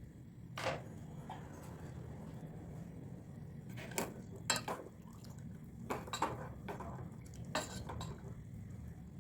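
Metal utensils and dishes clinking: several separate sharp clinks, a few in quick pairs, over a low steady hum.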